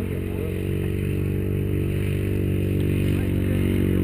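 Vehicle engine running steadily, its pitch and level rising slightly as it picks up speed.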